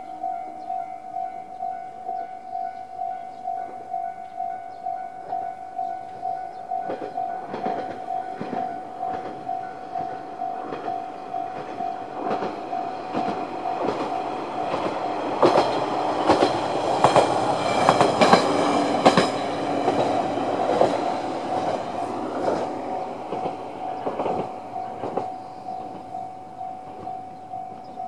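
Japanese level-crossing alarm ringing its JR East Tohoku-type electronic tone, a steady pulse about twice a second. From about seven seconds in, a YR-880 diesel railcar crosses, its wheels clacking over the rail joints loudest in the middle and fading toward the end.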